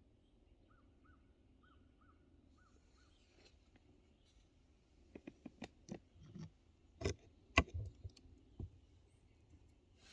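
Quiet woodland: a faint run of six short chirps in the first three seconds, then a handful of irregular sharp clicks and snaps, the loudest about seven to eight seconds in.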